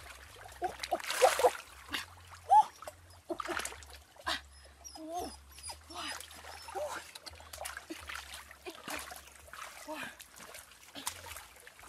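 Hands splashing and sloshing in shallow muddy stream water while groping for fish, with a dog giving short whines several times.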